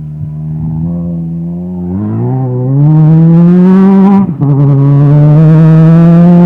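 Off-highway vehicle engine running close and loud, its pitch climbing from about two seconds in. It dips briefly just past four seconds, then holds high and steady.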